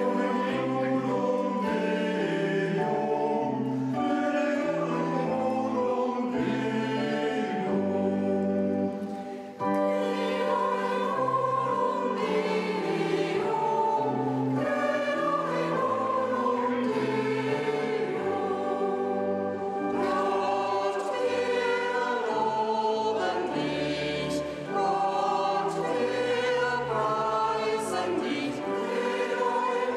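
Mixed church choir singing a hymn in parts, accompanied by sustained chords on an electronic organ.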